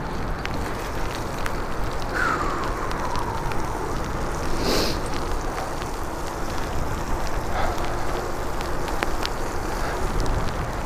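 Tyre hiss on wet pavement and wind rush from a 1997 Giant Iguana mountain bike ridden through rain, with scattered ticks of water drops on the camera. A brief falling whine about two seconds in.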